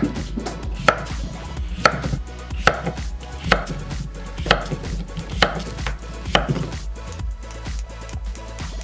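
Kitchen knife slicing white cucumbers into thick rounds on a wooden cutting board: a sharp knock of the blade on the board about once a second, with lighter ticks between. The strokes grow fainter near the end.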